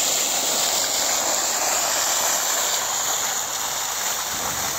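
Fountain jet of water shooting up and splashing steadily into a stone basin, an even rushing hiss.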